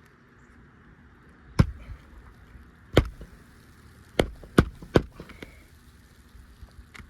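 Nails being driven into asphalt roof shingles to fasten a replacement shingle: five sharp knocks at uneven intervals, three of them in quick succession after the middle.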